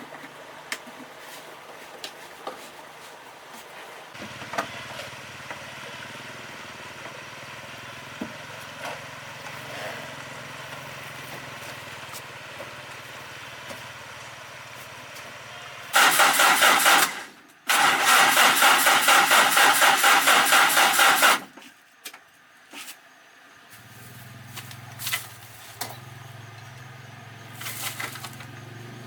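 Truck engine being cranked and started: a loud, rapidly pulsing burst of about five seconds, broken once near the start, with a low steady hum before and after.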